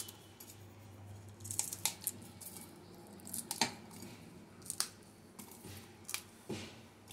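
Whole green chillies dropped one by one into a stainless steel mixer-grinder jar of mustard and poppy seeds, making a series of light, irregular taps and clicks.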